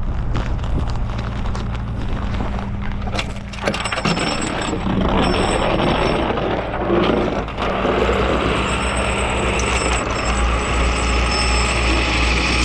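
Rollback tow truck's engine running steadily at idle, with a broad hissing rush joining about three to four seconds in.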